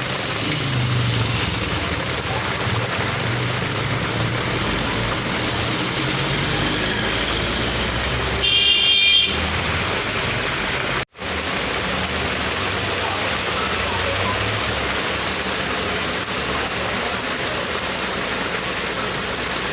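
Steady rain hissing, with a motor vehicle passing in the first few seconds and a short horn toot about halfway through. The sound cuts out for an instant just after the toot.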